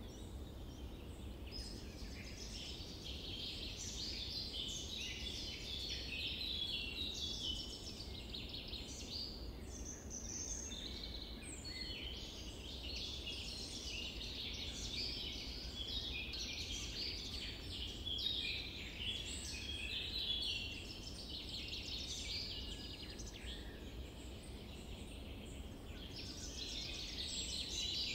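Many birds chirping and singing together, a dense run of short high calls that never stops, over a faint low steady rumble.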